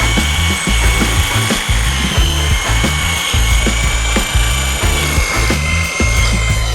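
Corded electric drill with a long extension bit running steadily, boring up through a ceiling, its motor giving a steady high whine. Background music with a steady beat plays underneath.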